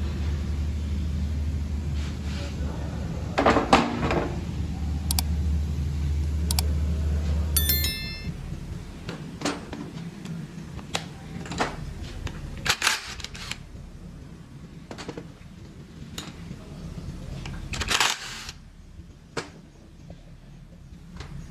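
Scattered metal clinks and knocks of hand tools and engine parts being handled, a few of them louder and ringing. A steady low hum runs underneath and stops about eight seconds in.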